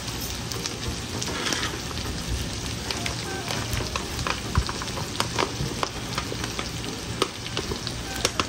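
Stir-fry of shrimp, chicken, sausage and vegetables sizzling steadily in a frying pan, with sharp clicks and scrapes of a utensil against the pan as cooked macaroni is added.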